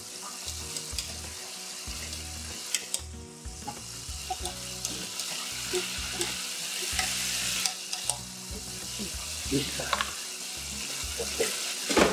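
Battered walleye pieces frying in a pot of hot oil: a steady sizzle with crackles, and a few sharper clicks near the end as the pieces are moved in the pot.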